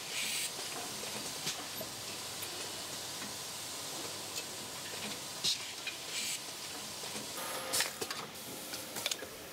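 Automated laserdisc-handling production machinery running: a steady hiss with scattered short clicks and brief high hisses from the mechanisms as discs are moved.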